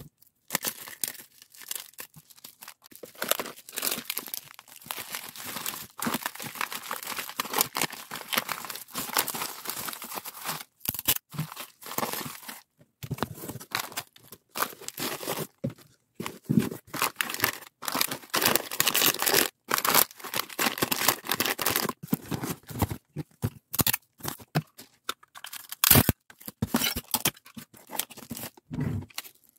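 Order-packing handling noises: plastic packaging bags crinkling and rustling in the hands, then a cardboard shipping box being handled and its flaps folded shut. An irregular run of crackling with short pauses and a few sharp clicks near the end.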